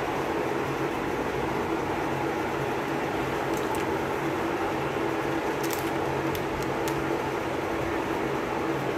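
Steady mechanical hum with hiss, like a room fan or air conditioner. Faint crackles from cellophane lollipop wrappers being handled come between about the middle and two-thirds of the way through.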